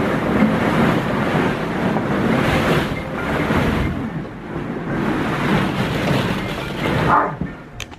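Plastic ball-pit balls rattling and clattering together as a person wades and digs through the pit, a dense continuous rustle that eases off near the end.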